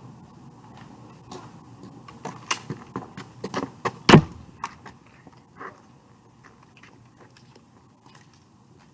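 Scattered clicks and knocks of handling and movement, with one loud sharp knock about four seconds in.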